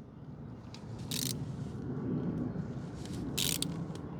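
Hand tool working the 8 mm coolant drain bolt: two short scraping rasps, about a second in and again about three and a half seconds in, over a steady low rumble.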